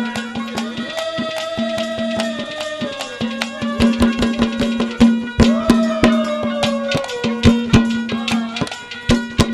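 Folk music played on clay water pots (ghara) used as drums: quick hand strokes that grow busier about four seconds in and again near the end. Underneath runs a steady drone, with a held melody line that rises, holds and falls twice.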